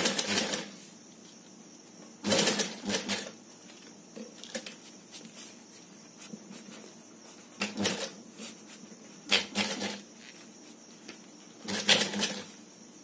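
Industrial sewing machine stitching in several short runs of a second or less, stopping between runs while the fabric is guided and turned under the needle.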